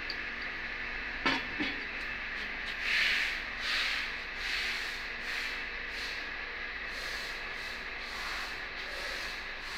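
A steady hiss, with two light metal clicks a little over a second in as the steel stamping-tool block is worked with a hex key, then a few seconds of rubbing and handling noise as the block is lifted.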